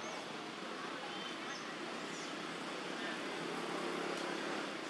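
Steady outdoor background noise with a few faint, short high chirps, and a low droning hum that grows a little louder in the second half.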